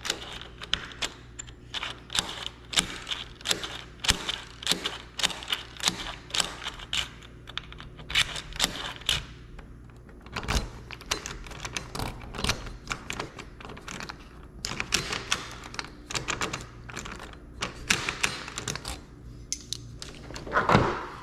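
Small metal lock parts and tools clicking and tapping in quick, irregular runs as a lock cylinder is worked on during a rekey, with a louder bump near the end.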